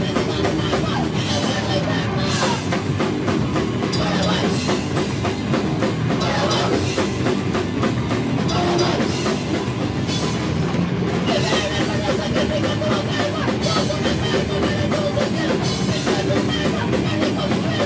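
A rock band playing loud and live: drum kit with bass drum, and electric guitars.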